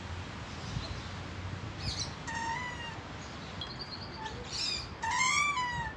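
A playground swing's chain hangers squeaking as it swings: two wavering squeals about three seconds apart, the second louder and longer. A few short bird chirps come in between.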